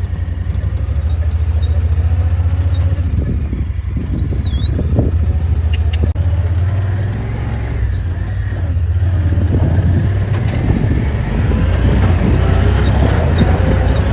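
Vehicle engine running with a steady low drone while driving across the farm. A brief high squeak sounds about four seconds in.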